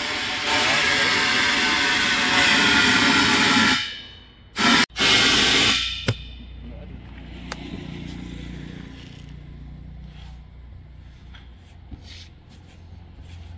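Compressed air hissing out loudly for about four seconds, then two short blasts about five seconds in. After that, a low steady hum with a few faint clicks.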